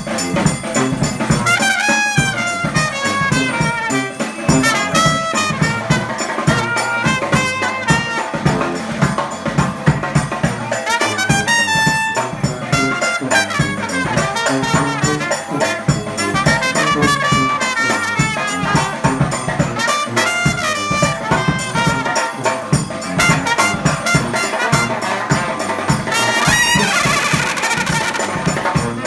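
New Orleans brass band playing an instrumental number: trumpets and trombones carrying the melody over tuba and drums keeping a steady beat.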